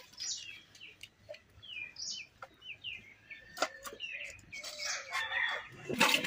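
Birds calling over and over with short, high, downward-sliding chirps. Metal bowls and pots knock a few times as they are set down on the ground, with a louder clatter near the end.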